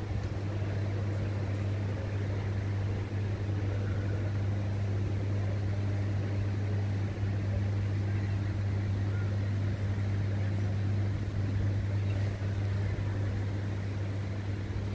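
A steady, unbroken low mechanical hum, like an engine or machine running at a constant speed, over a background wash of outdoor noise.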